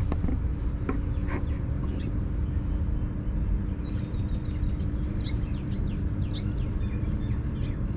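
A steady low rumble of traffic with a constant hum, a few light clicks in the first two seconds, then small birds chirping in quick, short, falling notes from about halfway.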